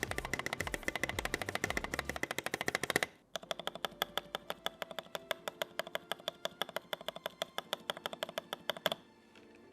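Fast typing on a Keychron V1 mechanical keyboard with tactile Akko Jelly Blue switches and SA-profile keycaps: a quick, even run of keystrokes. The typing breaks off about three seconds in, resumes with a brighter, more ringing click at a steady pace of several keys a second, and stops shortly before the end.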